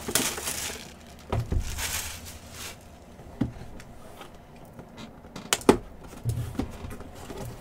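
Cellophane shrink wrap crinkling as it is stripped off a cardboard hobby box of trading cards, then the box being handled, with a few short knocks, the loudest about five and a half seconds in.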